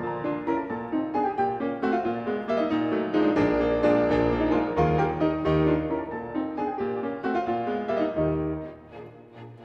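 Background piano music, many notes with a bass line, falling much quieter near the end.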